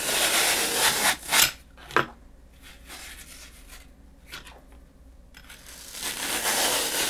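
Block of dry floral foam being sliced with a handheld slicer: a dry scraping rasp for the first second and a half, two sharp clicks around two seconds in, then quiet until a second slicing rasp starts near the end.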